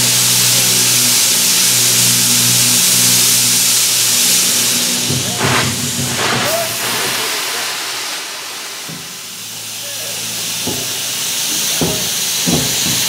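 Two-foot-gauge steam locomotive No. 9 venting steam in a loud, steady hiss with a low hum beneath it; the hiss dies away about halfway through. A few short knocks follow near the end.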